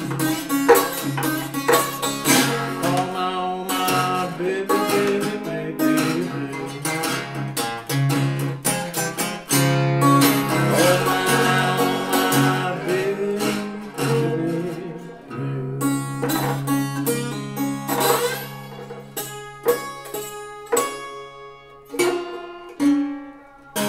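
Fingerpicked blues on a small Gretsch parlor acoustic guitar in open tuning, with a steady low bass drone under the plucked melody notes and some sliding notes around the middle. The playing grows sparser and quieter near the end.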